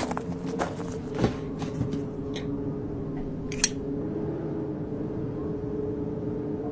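Footsteps crunching over heaped trash, thinning out over the first two and a half seconds, then one sharp click about three and a half seconds in, over a low steady hum.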